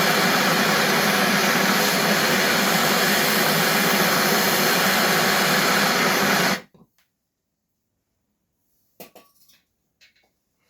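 A power tool's motor runs steadily and loudly, then stops abruptly about six and a half seconds in. A few faint clicks follow.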